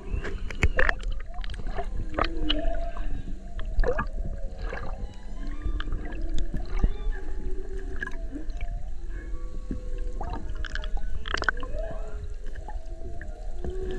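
Humpback whale song heard underwater: a string of calls that glide up and down in pitch, over a steady low rush of water. Sharp sloshes and knocks of water against the camera break in several times.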